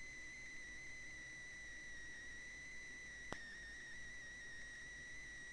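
Quiet background with a faint steady high-pitched whine and a single soft click a little past three seconds in.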